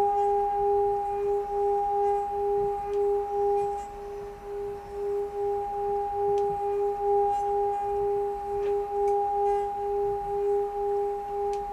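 Singing bowl sung by circling its rim, a sustained two-tone ring with a steady, regular wobble in the lower tone.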